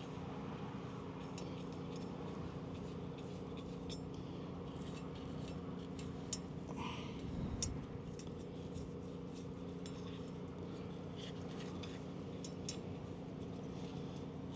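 Faint light clicks and scrapes of a small anti-seize applicator brush dabbing and tapping against steel wheel studs, with a short cluster of scraping about seven seconds in, over a steady low hum.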